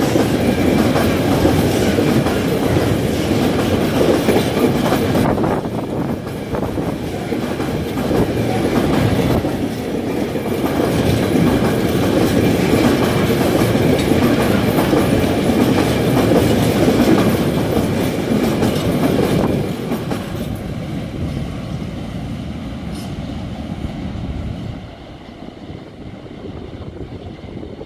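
Empty container flat wagons of a freight train rolling past, with steady wheel clatter over the rail joints. Near the end the last wagon passes and the sound fades away.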